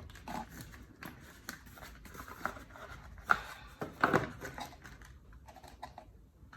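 Watch packaging being handled by hand: irregular rustling and crinkling with short clicks, the sharpest click about three seconds in.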